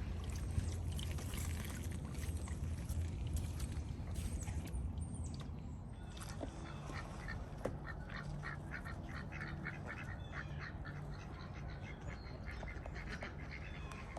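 Birds calling in a quick run of short, repeated notes from about six seconds in. A low rumble fills the first half.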